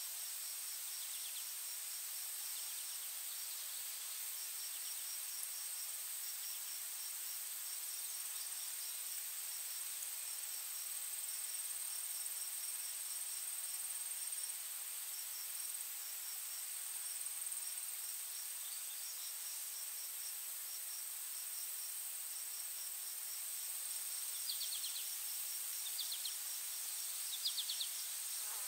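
Insects chirping: a steady high-pitched whine with a rapid, evenly pulsing chirp just below it, and a few short separate chirps near the end.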